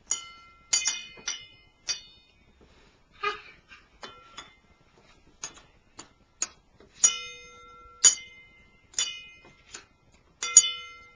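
Something that rings is struck again and again at an uneven pace, roughly once every half second to a second. Each sharp tap leaves a clear ringing tone, and the strikes near the end are louder and ring longer.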